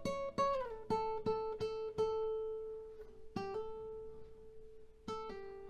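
Guitar being played: a quick run of plucked notes and a slide down in pitch, then repeated picking on one note that rings on and fades, with a fresh pluck about halfway through and another near the end.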